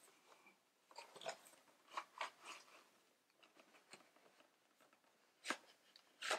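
Cardboard webcam box being pulled open by hand: irregular crinkles, scrapes and light taps of the paperboard flaps and inner packaging, with a sharper snap about five and a half seconds in and another near the end.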